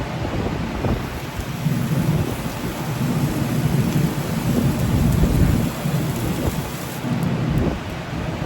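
Gas forge burner running with a steady low roar while horseshoes are heated for shaping.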